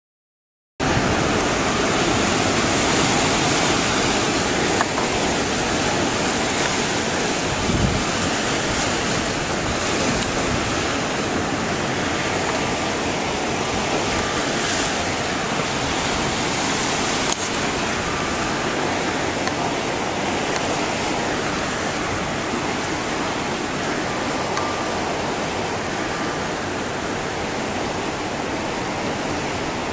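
Tsunami surge water rushing and churning through a harbour, a steady loud noise with wind on the microphone, starting abruptly about a second in.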